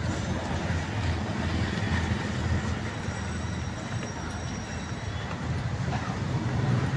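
Outdoor street ambience: a steady low rumble with an even noisy haze over it.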